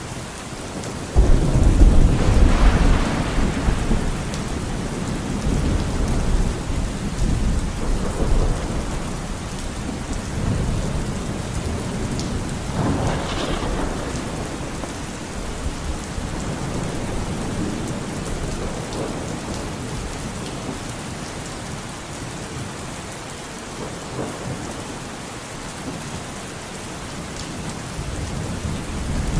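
Steady rain with thunder: a sudden deep clap of thunder about a second in that rumbles on for several seconds, and a second, smaller roll about halfway through, both fading back under the rain.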